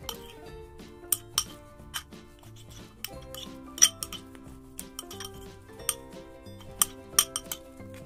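A spoon clinking and scraping against a bowl as slime is stirred and activated: irregular sharp clinks, the loudest about four seconds in, over light background music.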